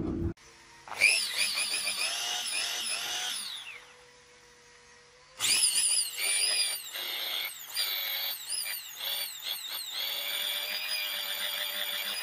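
Freshly restored small Makita electric hand drill test-run in two spells: about three seconds, a short pause, then about seven seconds. Its motor whine dips and rises in pitch as the speed changes.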